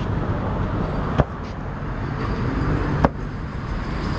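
A green artificial-grass floor mat being shaken out, with two sharp smacks about two seconds apart as it is snapped and beaten. Steady outdoor rumble underneath.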